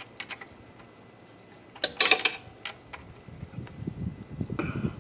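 Metal hand tools clicking and clinking as a socket ratchet works on the motorcycle's kickstand mounting bolts: a few light clicks, then a louder burst of metal clinks about two seconds in, and low rubbing and handling noise near the end.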